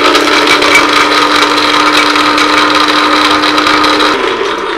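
Small electric blender-grinder running at high speed with a steady whine while almonds rattle and grind to powder in its jar. The motor is switched off about four seconds in and winds down.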